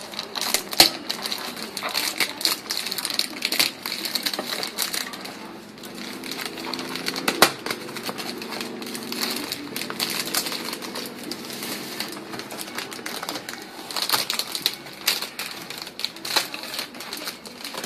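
Clear plastic wrap crinkling and crackling as it is handled and pulled off a cardboard ration box, with many irregular sharp crackles and a few louder snaps.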